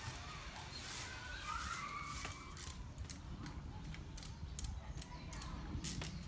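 Trials bicycle hopping on rocks: scattered light knocks and clicks as the tyres and frame strike the stone, over a steady low rumble.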